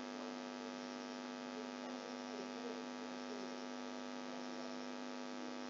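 Steady electrical mains hum, a buzzy tone with many overtones, holding level throughout.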